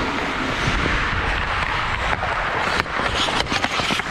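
Ice hockey skates carving and scraping across the ice in a steady hiss, heard from the skater's own helmet. From about three seconds in come several sharp clacks of hockey sticks hitting the puck and each other.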